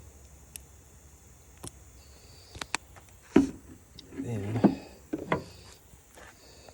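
Handling noises from putting sauce on burgers: scattered sharp clicks and taps, the loudest about three and a half seconds in, and a short pitched sputter a little after the middle.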